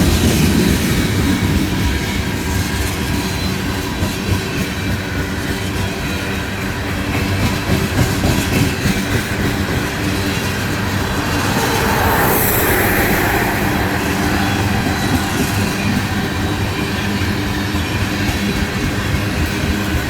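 A CPKC ballast train's cars rolling past with a steady rumble and rapid clicking of wheels over the rail joints. A brief high hiss comes a little past halfway.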